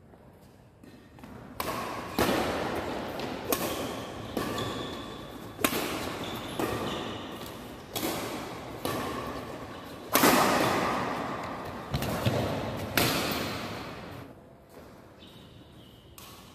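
Badminton doubles rally: about a dozen sharp racket hits on the shuttlecock, roughly one a second, each ringing on in the echoing hall, until the rally stops about thirteen seconds in.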